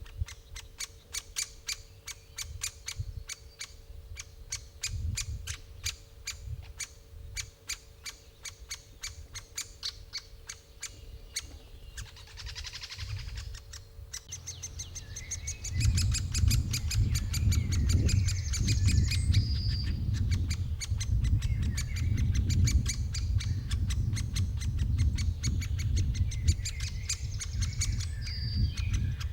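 Great spotted woodpecker calling: a rapid, even series of short sharp notes, several a second. From about halfway along the calls grow louder and more varied, over a low rumble.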